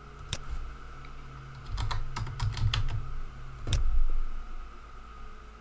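Typing on a computer keyboard: a single keystroke, then a quick run of about half a dozen keystrokes, and one louder click a little over three and a half seconds in.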